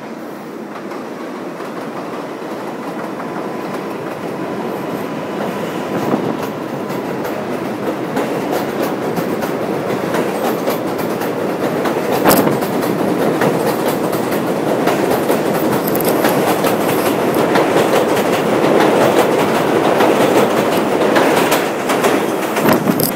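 New York subway R188 train on the elevated Flushing (7) line moving along the platform and pulling out, its wheels clacking over rail joints with the running noise building steadily louder. There are scattered sharp clacks, a strong one about halfway, and a thin steady whine that fades after about six seconds.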